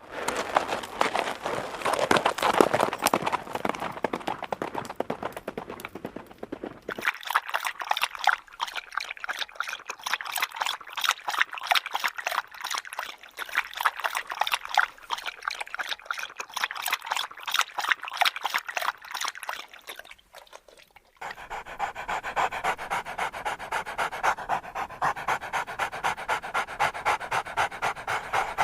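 Dog panting in quick, even breaths. The sound changes abruptly twice, about a quarter of the way in and again about three-quarters through, just after a brief quiet dip.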